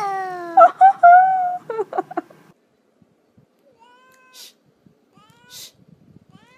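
A domestic cat meowing: a long drawn-out meow that falls in pitch, then several shorter meows and yowls until about two seconds in. After that there are only faint short rising calls.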